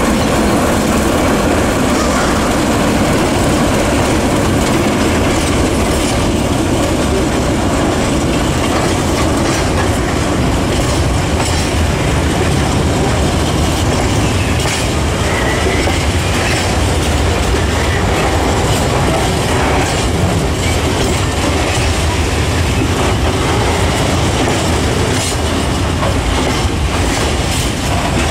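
A freight train of tank wagons rolling past close by, a steady loud rumble of wheels on rail with repeated clicks as the wheels cross the rail joints.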